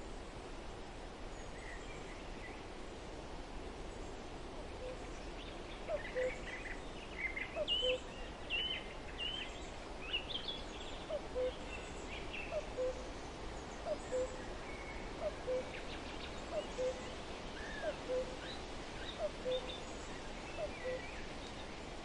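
Mixed birdsong over the steady rush of running river water. From about five seconds in, one bird repeats a short low call roughly every second and a quarter, and a burst of higher chirping comes between about six and eleven seconds.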